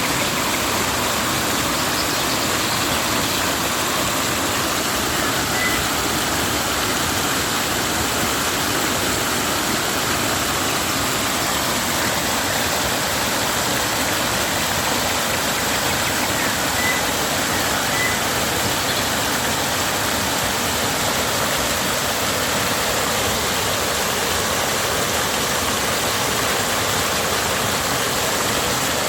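Yao River water flowing and rushing in a steady, loud wash, swollen after rain.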